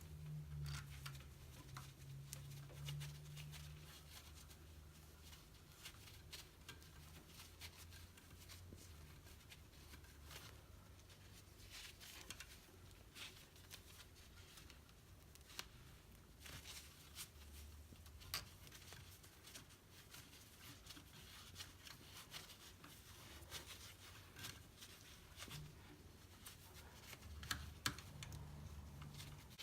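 Faint, scattered clicks and rustles of electrical wires being handled and twisted together in plastic wire nuts, over a low hum.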